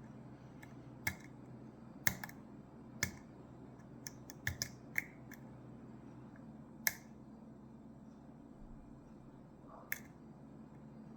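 Sharp, irregular metallic clicks of a lock pick and tension wrench working the pin stack of a Ruko 600 lock cylinder, about ten scattered clicks over some ten seconds as pins are pushed and set.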